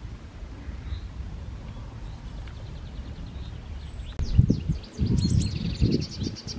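Wind buffeting the microphone as a low rumble, much louder in gusts from about four seconds in. A small songbird sings a fast run of high repeated notes in the second half.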